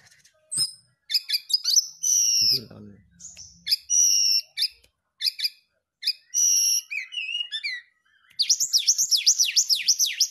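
Brown-chested jungle flycatcher (sikatan rimba dada coklat) singing: scattered high, clear whistled notes and short phrases, then, near the end, a fast run of about ten downslurred notes.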